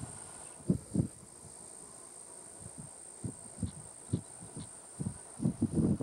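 Wind gusting against the microphone in irregular low rumbles, loudest about a second in and near the end, over a steady, high, thin tone.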